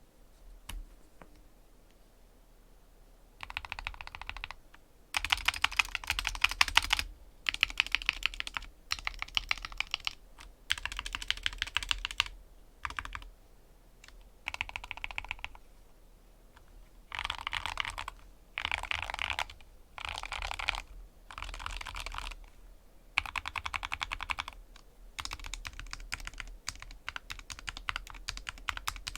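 Skyloong SK64S keyboard with Gateron optical red linear switches, lubed with Krytox 205g0 and dampened with 5 mm foam, being pressed in repeated one-to-two-second bursts of rapid keystrokes. The stabilised keys are tested first, then bottom-row keys and arrow keys are spammed fast. The first three seconds are nearly quiet.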